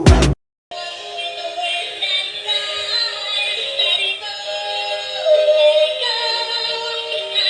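Tinny electronic children's song with a high synthetic-sounding voice and no bass, typical of a dancing doll's built-in speaker. It starts just under a second in, after loud beat music cuts off abruptly with a brief silence.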